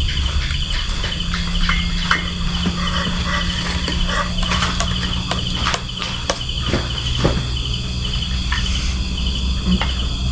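Crickets chirping in a steady, fast pulsing chorus, with scattered clinks of a spoon against dishes and a metal rice pot, over a low steady hum.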